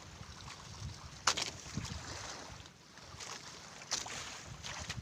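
Wind rumbling on the microphone aboard a small fishing boat at sea, over the wash of water, with several short sharp splashing or knocking sounds, the clearest about a second in and again near four seconds.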